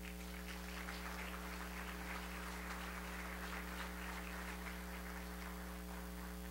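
Faint audience applause after a speaker's introduction, dying away near the end, over a steady electrical mains hum.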